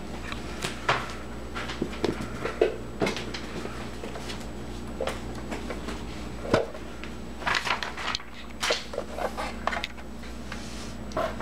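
Scattered small knocks, clicks and rustles of plastic toy figures and a cardboard box being handled on a tabletop, over a steady low hum.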